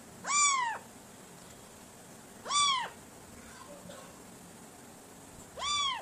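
Cat meowing three times, short clear meows that rise and fall in pitch, spaced about two and a half seconds apart.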